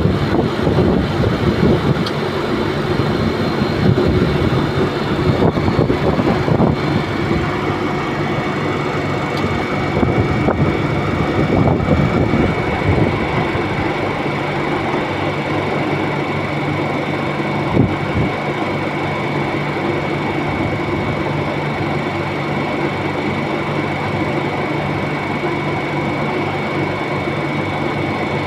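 Refrigerated shipping container's cooling unit running just after its compressor has started: a loud, continuous mechanical hum with a steady high whine. It is uneven for the first dozen seconds or so, then runs evenly.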